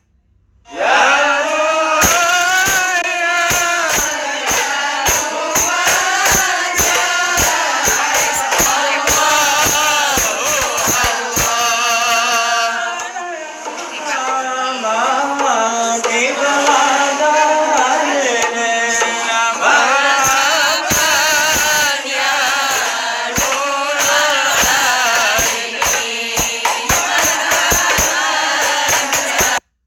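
A group singing Islamic devotional verses (sholawat) together, with a tambourine beating along in a fast, steady rhythm.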